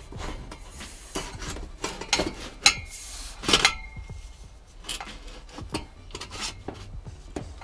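A stainless steel exhaust pipe being handled and fitted up under a car: scattered metal clinks, knocks and rubbing. The loudest clanks come around the middle, each followed by a brief ring from the pipe.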